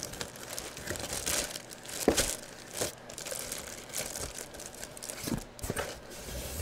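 Clear plastic bag crinkling and rustling as a jersey is packed into it, with a couple of soft knocks from a cardboard box being handled.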